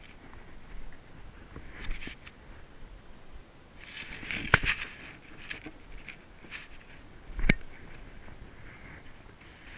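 Footsteps and scuffs of a climber descending a bare granite slope, close to the microphone, with two sharp knocks, one about halfway through and one a few seconds later.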